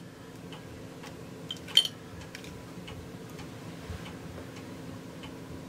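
Soft scattered clicks and ticks as a kerosene lantern's wick is lit with a long-nosed utility lighter and the glass chimney is handled, with one sharper click nearly two seconds in. A steady low hum runs underneath.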